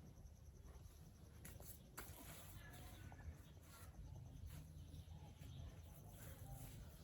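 Near silence: faint low background rumble with a few soft clicks.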